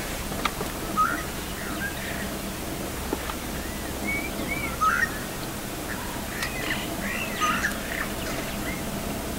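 Wild birds calling with short chirps and whistled notes, scattered through and busiest near the end, over a steady low hum.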